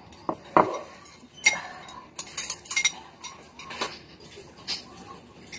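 A metal spoon clinking and scraping in a ceramic bowl, then dishes and utensils clattering: a string of separate sharp clinks and knocks, some with a short ring.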